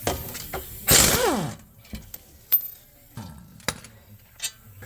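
Hand tools working on a car's brake caliper bracket: a loud burst about a second in that drops in pitch, then a few sharp metallic clicks and knocks.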